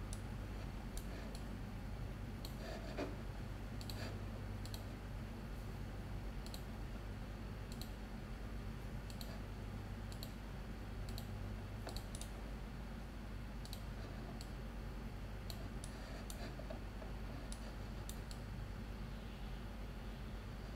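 Computer mouse buttons clicking at irregular intervals, roughly one click a second and sometimes two close together, as contour points are placed for a polygon selection. A steady low hum lies under the clicks.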